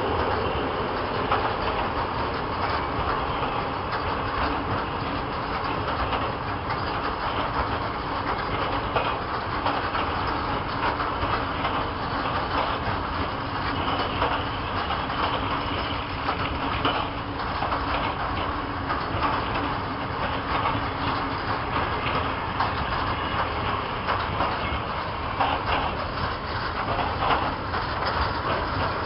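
Long freight train of covered hopper wagons rolling steadily past: a continuous rolling rumble with repeated clicks of the wheels over the rail joints.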